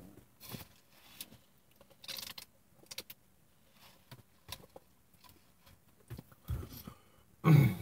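Faint chewing of a mouthful of chicken-fried steak biscuit, with scattered small clicks and paper-wrapper rustles. A short voiced hum comes near the end.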